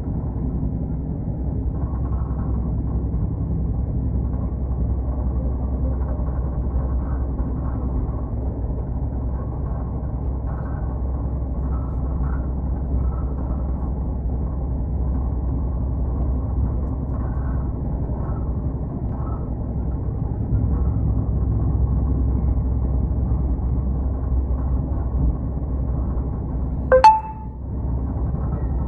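Steady low rumble of a train running, with one sharp click near the end.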